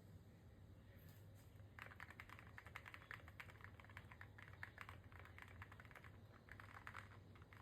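Typing on a Paw65 mechanical keyboard with a CNC aluminium case, as a sound test: quick, irregular key clicks, faint, starting about two seconds in.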